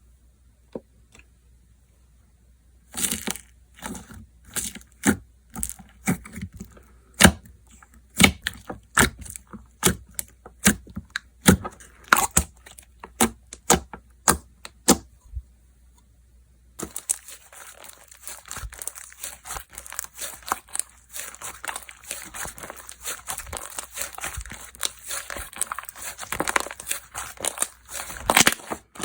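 Slime being pressed, stretched and folded by hand: a series of sharp wet pops and clicks of air bubbles bursting, then after a short pause a dense, fast crackle as the slime is worked quickly.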